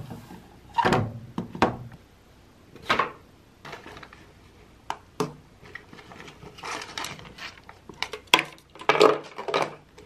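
Scattered knocks, taps and short rustles of objects being handled: a tablet in its folio case is picked up off a wooden shelf, and things are put into a zippered shoulder bag. The strikes come irregularly, with a denser cluster near the end.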